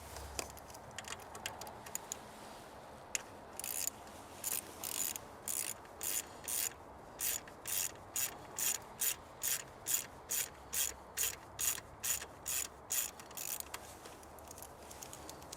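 Socket ratchet clicking in short back-and-forth strokes, about two a second for some ten seconds, after a few light clicks; typical of a spark plug being ratcheted out of the cylinder head.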